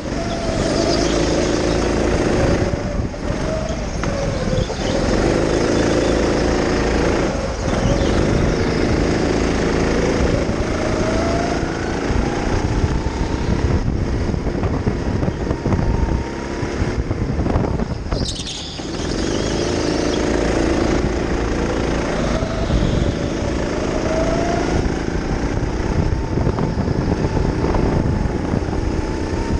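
Go-kart driving laps, its motor sound rising in pitch as it speeds up along each straight and dropping back for the turns, several times over, over a steady rumble and rattle of the kart.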